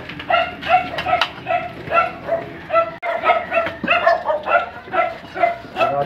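A small dog barking again and again in short, high yaps, about two a second.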